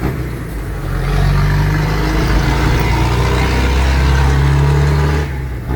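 Diesel engine of a Volkswagen 8-140 light truck, run up about a second in and held at higher revs with a deep rumble, then let back down near the end.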